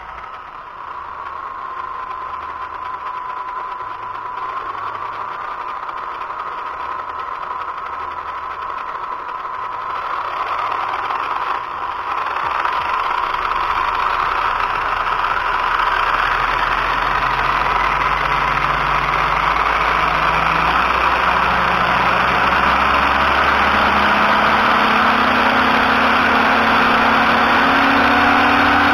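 Spectrum 4685 1250kV brushless motor and drivetrain of an Arrma Limitless V2 running on a 4S battery in a static bench test: a steady electric whine that slowly rises in pitch and grows louder from about halfway through as the throttle is eased up.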